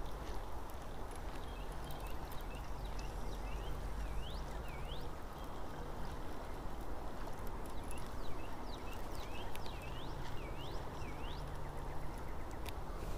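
Baitcasting reel cranked steadily to retrieve a square-bill crankbait, in two stretches with a short pause between, over running river water. A run of short high rising chirps comes along with each stretch of winding.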